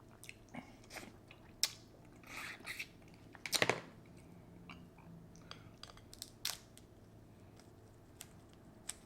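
Close-miked eating of a seafood boil with ramen noodles: chewing with scattered wet clicks and crunches, the loudest burst about three and a half seconds in.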